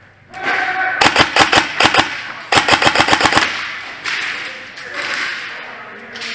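Airsoft electric gun firing two full-auto bursts, each about a second long at roughly ten shots a second, with a short pause between them.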